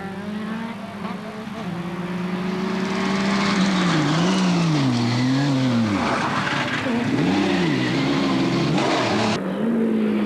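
Metro 6R4 rally car's V6 engine, growing louder as the car approaches. Its revs swing sharply up and down several times in the second half.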